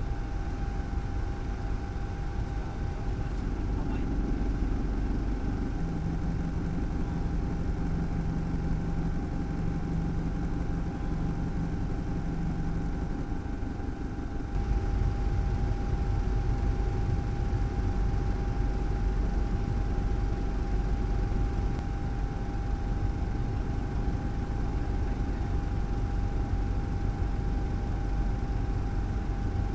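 Helicopter engine and rotor noise heard from inside the aircraft: a steady low drone with a constant turbine whine over it. About halfway through the rumble steps up a little louder.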